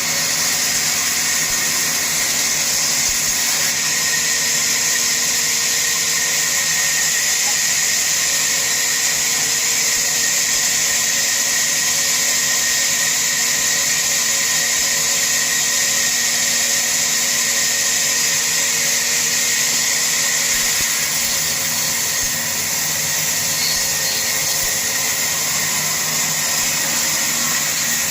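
A woodworking power tool running steadily through wood, a continuous high hiss with a steady hum beneath it.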